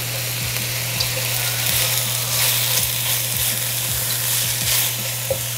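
Sliced onions and carrot matchsticks sizzling steadily in hot oil in a wok, stirred with a silicone spatula, with a steady low hum underneath.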